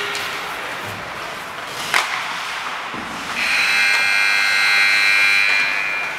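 Ice-rink buzzer sounding one steady, harsh tone for about three seconds, starting about three seconds in: the signal for the end of the period. Before it, a single sharp knock comes about two seconds in.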